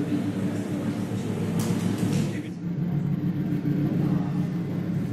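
Low, steady droning hum made of several held tones, with a brief hiss about two seconds in.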